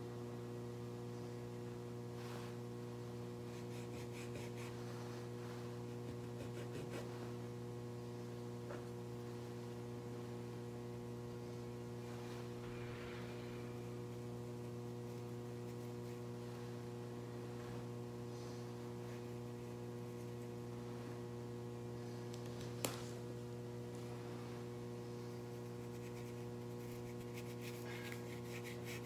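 Steady electrical mains hum throughout, with faint, scattered scratchy strokes of a paintbrush on paper and one sharp click a little past three quarters of the way through.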